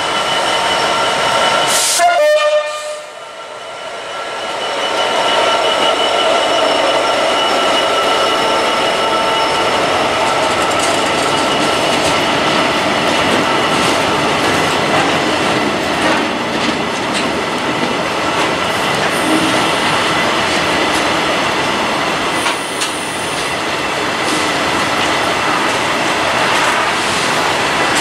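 A Class 66 diesel freight locomotive passes and sounds a short horn blast about two seconds in. A long train of empty flat container wagons then rolls steadily past, with rumble and wheel clatter on the rails.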